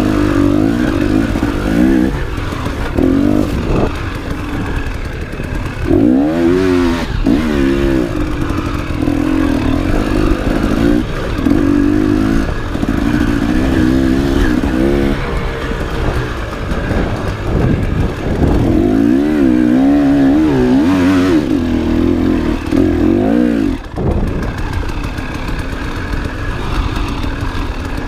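Enduro motorcycle engine revving up and down over and over, with rattling, as the bike is ridden off-road; the engine note eases off briefly twice.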